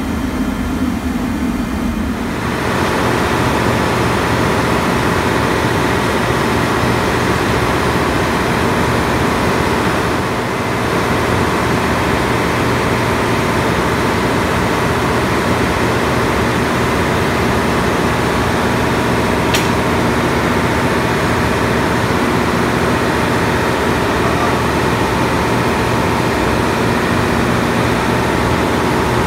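Ship's engine-room machinery running: a steady hum that, about two seconds in, gives way to louder, fuller machinery noise that holds steady. A single sharp click stands out near the end.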